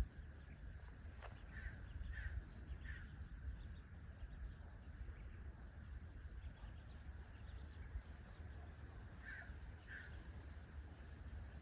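Ducklings giving faint, short, falling peeps: three in quick succession about two seconds in, then two more near the end. A low rumble runs underneath.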